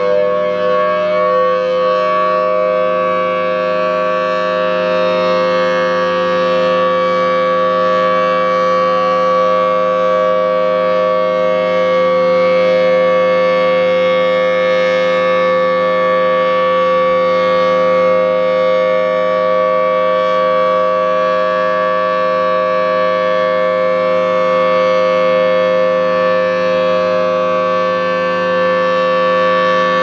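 Federal Signal Thunderbolt 1000T outdoor warning siren sounding its steady alert: the pitch finishes rising just after the start, then holds a very loud, steady chord of several tones. Its rotator is broken, so the horn stays pointed one way and the sound holds an even level instead of swelling and fading with rotation.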